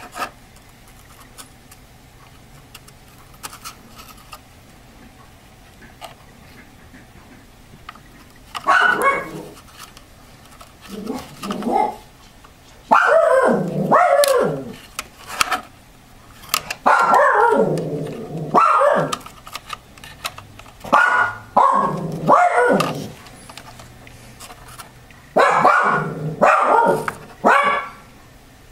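A dog barking in a run of loud bursts that begins about a third of the way in, over faint small clicks of handling.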